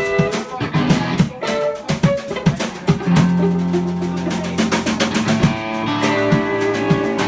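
Live instrumental jam: an electric guitar playing over a drum kit, with a long held low note about three seconds in.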